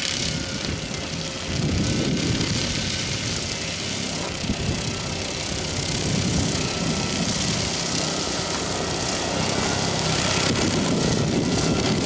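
Kubota skid steer's diesel engine working under load while the hydraulic direct-drive brush mower's spinning blades cut through tall grass and brush: a steady, dense mechanical noise that grows louder about a second and a half in.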